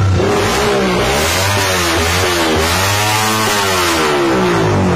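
Suzuki Raider 150's single-cylinder four-stroke engine through a loud exhaust, revved over and over in a sound check, its pitch climbing and falling several times.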